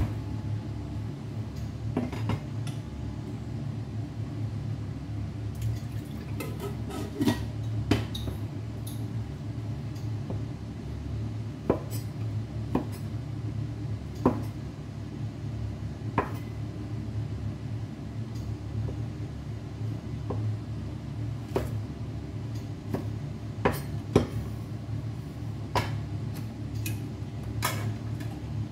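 Kitchen utensils and dishes clinking and knocking on a counter, about a dozen short, sharp clinks at irregular intervals, over a steady low hum.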